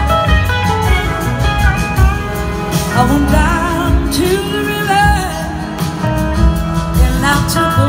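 A large soul-blues band playing live, heard from far back in the audience: drums, bass and keys under a slow groove. From about three seconds in, a wavering lead melody slides in and out of pitch.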